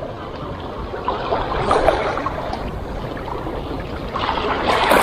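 Small sea waves lapping and splashing among shoreline rocks, with wind rumbling on the microphone; the wash grows louder near the end.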